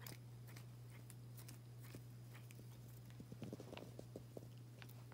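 A domestic cat chewing raw spinach leaves: faint, scattered crunchy clicks that come thicker for a moment a little past halfway, over a steady low hum.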